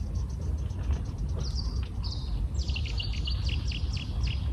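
A small bird singing a quick run of high chirping notes, densest in the second half, over a steady low rumble.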